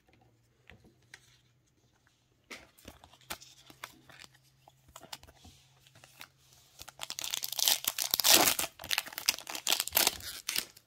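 Light clicks and taps of cards and packs being handled. Then, about seven seconds in, a Topps Finest Star Wars trading-card pack wrapper is torn open and crinkled, with a second crinkling burst near the end as the cards are slid out.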